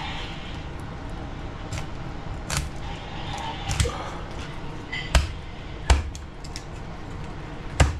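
A large kitchen knife cutting through a raw fish fillet and knocking on a wooden cutting board: about five sharp knocks, the loudest in the second half, over a steady background hiss.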